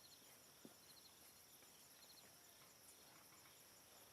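Faint insect chorus: a steady high buzz with rapid even pulses, and a short three-note chirp repeating about once a second.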